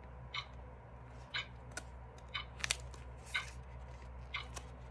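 Page of a thick, sticker-laden scrapbook journal turned by hand: a sharp double crackle of paper a little under three seconds in, then a brief rustle as the page settles. Behind it, soft even ticks about once a second.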